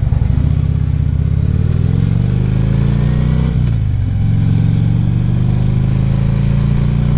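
Harley-Davidson Ultra Classic Limited's V-twin engine under way, its pitch rising as it accelerates, then dropping at a gear shift about three and a half seconds in before pulling again and settling at a steady pitch.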